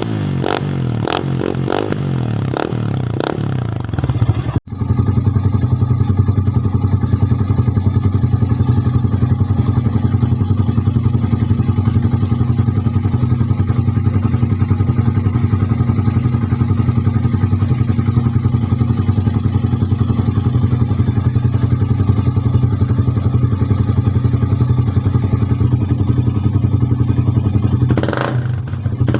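Suzuki Raider 150 single-cylinder engine idling steadily and loudly through an Apido power pipe with the silencer removed, an open, unmuffled exhaust note. It rises briefly in a rev near the end.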